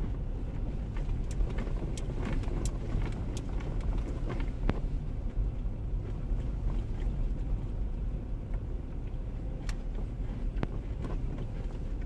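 A vehicle driving: a steady low road and engine rumble, with scattered sharp clicks and ticks, more of them in the first five seconds and again around ten seconds in.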